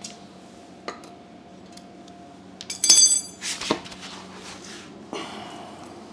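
Metal clinking and clattering: a sharp clank with a brief high ringing about three seconds in, then a second clank, as steel parts and tools are handled, with a few lighter knocks and a scrape.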